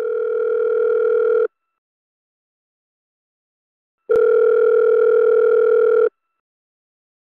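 Telephone ringing tone heard down the line: a steady buzzing tone in two-second rings with pauses between. One ring ends about a second and a half in and the next sounds from about four to six seconds in, as a call rings out before it is answered.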